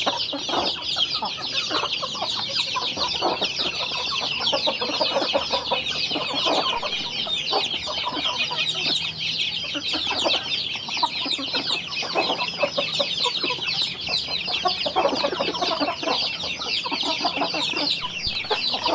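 A flock of young chicks peeping nonstop, a dense chorus of short, high, falling chirps. Under it runs irregular tapping of beaks pecking feed from a wooden trough.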